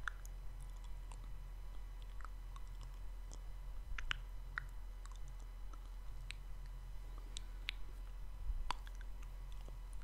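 Close-miked ASMR mouth sounds: soft, wet lip and tongue clicks, scattered and irregular at about one or two a second, over a steady low hum.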